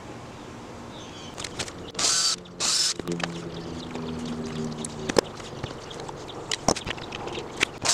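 Pliers working a rusty nail out of an old oak chair joint: two short scraping rasps about two seconds in, then scattered sharp clicks of metal on nail and wood.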